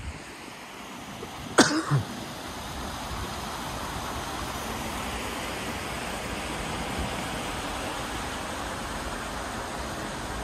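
A person coughing, two quick loud bursts about a second and a half in, over a steady hiss of road traffic that swells slightly afterwards.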